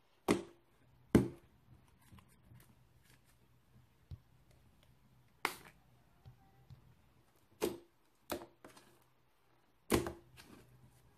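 Fluffy marble slime being squeezed and folded by hand, giving sharp clicking pops as trapped air bursts, about six loud ones with fainter small clicks between.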